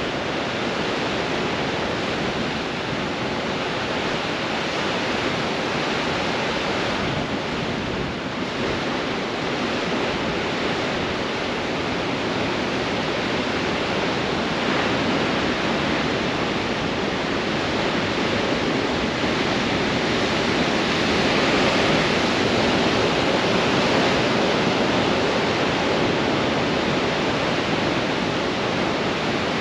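Ocean waves breaking on rocks in strong wind: a continuous rush of surf and white water with wind, swelling a little about two-thirds of the way through.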